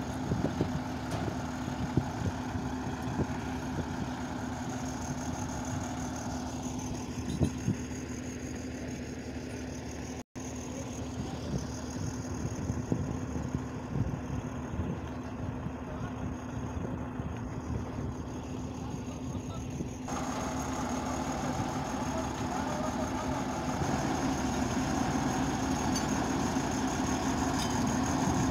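Heavy diesel engine idling steadily, with a brief gap about ten seconds in.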